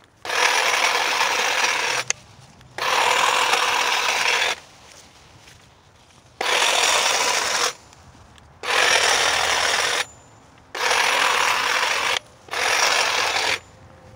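Cordless TOTAL lithium-ion hedge trimmer running and cutting through leafy bush stems, its reciprocating blades chattering. It runs in six bursts of one to two seconds, stopping briefly between each.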